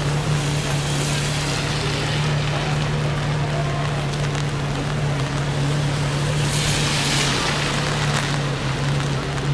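A car engine idling with a steady low hum, and a rushing hiss that swells about a second in and again around seven seconds.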